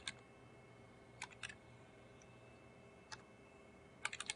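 Computer keyboard keystrokes as a username is typed: a few scattered key presses, then a quick run of several near the end, over a faint steady hum.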